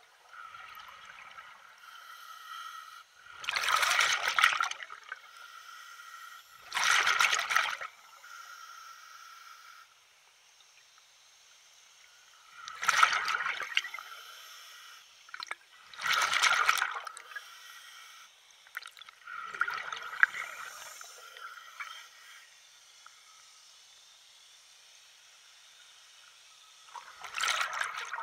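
Water splashing in about six short surges a few seconds apart, with a fainter trickle between them.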